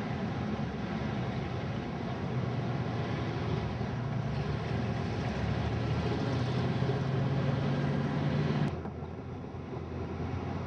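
Car engines running, a steady low hum that grows a little stronger in the middle and drops away abruptly near the end.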